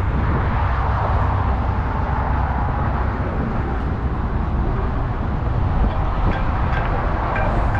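Steady low rumbling noise, strongest in the deep bass and with no clear pitch or rhythm.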